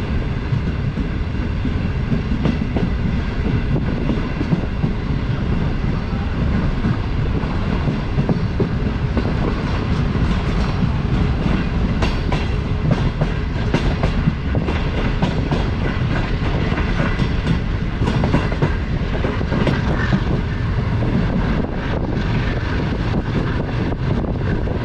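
Passenger train running on the rails, heard from on board: a steady rumble of the wheels, with irregular sharp clicks throughout as they pass over rail joints.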